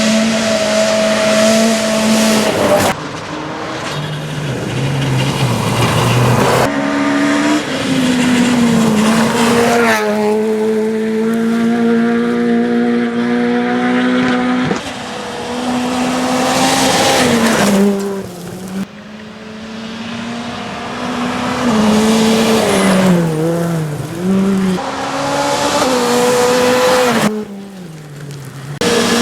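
Rally cars on a gravel stage at full throttle, engine pitch repeatedly climbing and dropping through gear changes and braking, with sudden cuts from one car to the next several times.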